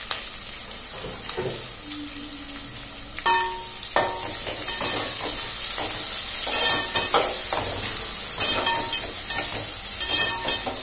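Freshly added chopped onions frying in hot oil in an aluminium pot, sizzling, while a spatula stirs and scrapes against the pot. The sizzle gets much louder about four seconds in, after a couple of knocks of the spatula on the pot.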